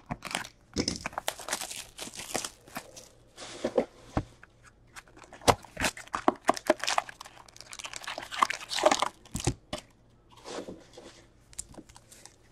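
Packaging of 2021 Trilogy hockey card boxes and packs being torn open and crinkled by hand: an irregular run of rips, crackles and small clicks.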